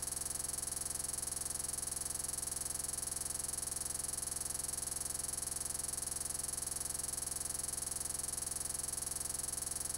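A steady, unchanging electronic buzz with a high hiss, with no events and no change in level: the sound of a glitched, frozen recording.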